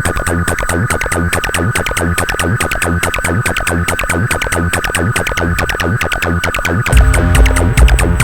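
Live techno played on hardware synths and drum machines: a fast, steady hi-hat pattern over a held high synth tone. About seven seconds in, a heavy low bass and kick come in and the music gets louder.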